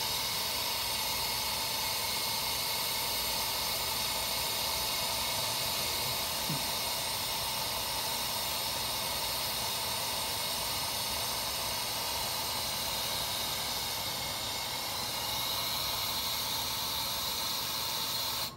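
Finetech Fineplacer Core BGA rework station blowing its process gas while it runs a soldering temperature profile: a steady hiss that cuts off suddenly at the end.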